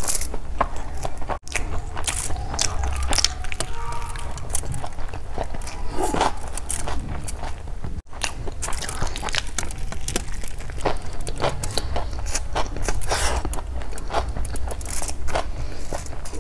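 Close-miked eating by hand: chewing mouthfuls of rice with wet mouth sounds, mixed with the squish and crinkle of fingers mashing rice on aluminium foil. The sound cuts out for an instant twice.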